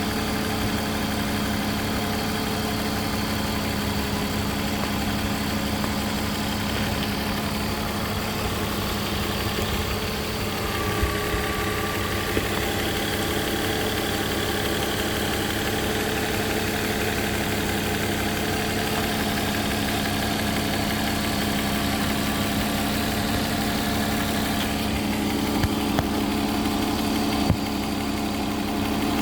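BMW M50 2.5-litre inline-six idling steadily, with a few brief clicks. The engine has an exhaust leak at the manifold gasket from loose manifold bolts.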